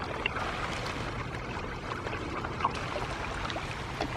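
Hybrid magur catfish feeding at the pond surface on floating pellets: a steady mass of small watery splashes and slurps, with scattered sharper pops.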